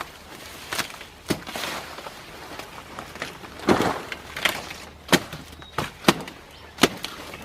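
Wood being worked by hand: about ten irregular sharp cracks and knocks, with rustling of brush in between.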